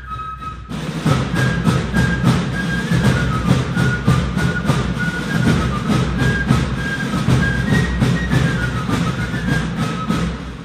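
Background music: a high piping melody over a steady, fast rhythmic accompaniment that comes in just under a second in.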